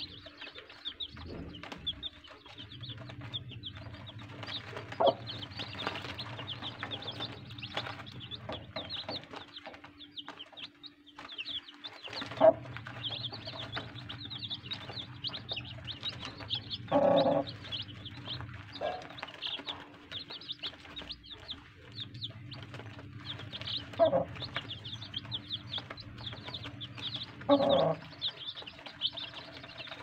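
A brood of young chicks peeping continuously, with rapid, overlapping high cheeps. Five louder, lower-pitched calls stand out, the longest near the middle and near the end, over a steady low hum.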